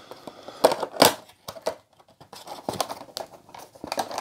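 Cardboard Funko Pop window box being handled and opened, with crinkling of the clear plastic packaging and irregular sharp clicks and snaps, two of them stronger about a second in, and denser rustling near the end.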